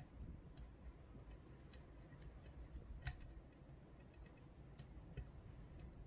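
Faint, scattered metallic clicks of a hook pick working the pin stacks of a GeGe rim cylinder held under tension. One click about three seconds in is louder than the rest.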